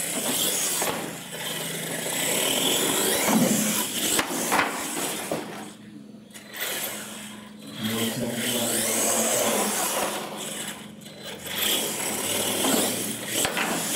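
Radio-controlled monster truck driving, its motor and gears whining and surging up and down with the throttle, with tyre scrub on concrete. It drops away briefly twice, around the middle and again near the end.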